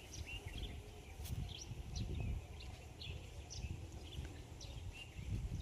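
Small birds chirping in short, scattered tweets, over a low rumble.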